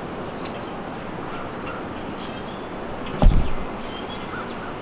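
Steady outdoor background hiss with a single dull, low thump a little over three seconds in.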